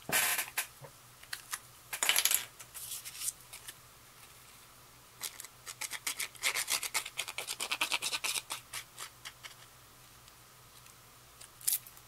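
Cardstock slid and lifted off a desk with short papery rustles, then a run of quick scratchy strokes as a Tombow Mono liquid glue applicator is rubbed over the back of an embossed cardstock panel.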